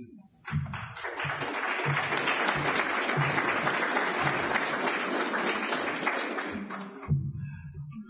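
Audience applauding: a dense patter of clapping that starts about half a second in and dies away around seven seconds.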